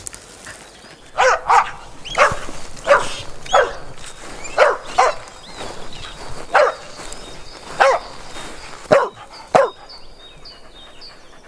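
Dog barking: about a dozen short barks, irregularly spaced and falling slightly in pitch, which stop a couple of seconds before the end.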